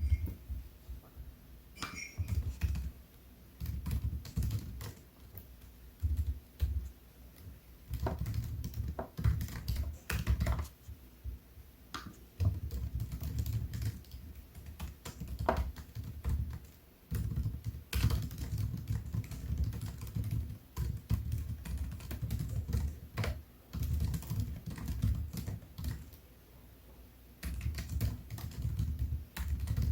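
Typing on a MacBook Air laptop keyboard: runs of quick key clicks with soft thumps through the desk, pausing briefly a few times.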